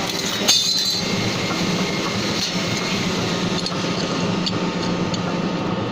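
TDF duct-corner steel punching machine running with a steady hum and clatter. A sharp metallic clank comes about half a second in.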